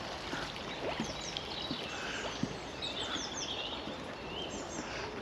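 Small birds calling: many short, high, downward-sweeping chirps over a steady outdoor background hiss.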